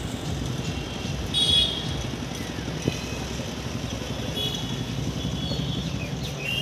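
Steady hum of town traffic from the streets below, with motorcycle engines in the mix. A short high-pitched toot about a second and a half in, and a single sharp tick near three seconds.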